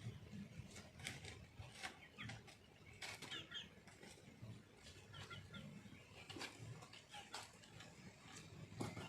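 Chickens clucking faintly, with short high chirps and scattered light clicks.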